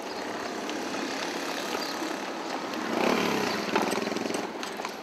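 Street traffic noise, with a motor vehicle's engine growing louder and passing about three seconds in.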